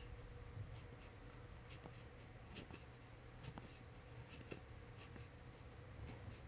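Faint, light scratching and scraping strokes on the wooden rifle stock as swelled wood is pared and cleaned up by hand, with a few small ticks, over a low steady hum.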